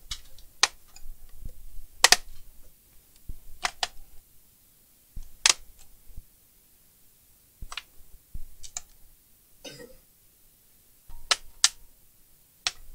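Plastic case of an HP laptop being pried open around its edge: about a dozen sharp clicks and snaps at irregular intervals as the clips are worked, with a short scrape near the end.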